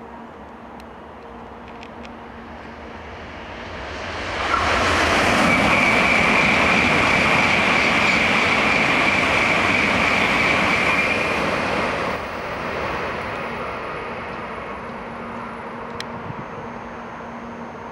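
Shinkansen bullet train passing at speed. The noise builds over a few seconds and stays loud for about seven seconds with a steady high whine through the middle. It then drops off suddenly and fades away.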